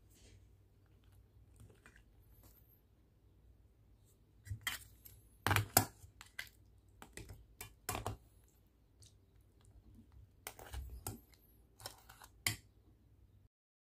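Metal spoon clinking, knocking and scraping against a stainless steel pot and the crab shells as it moves through a crab and shrimp coconut stew: a string of irregular sharp clicks that starts a few seconds in, loudest around the middle.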